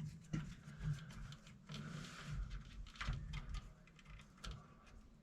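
Faint scattered clicks, knocks and rustles of handling, over a low hum.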